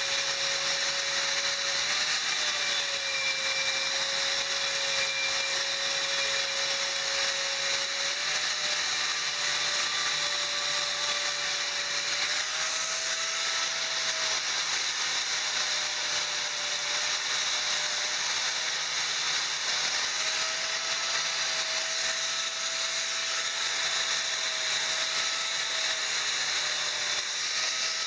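Electric angle grinder running continuously while grinding down a weld on thin steel square tubing. Its steady whine shifts slightly in pitch a few times as the disc is pressed onto and eased off the metal.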